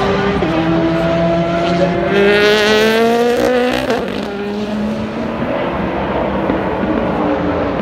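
Prototype sports-racing car accelerating past at full throttle: the engine note climbs steadily through a gear, with upshifts about half a second in and just before four seconds in, then it fades to a fainter drone of race engines.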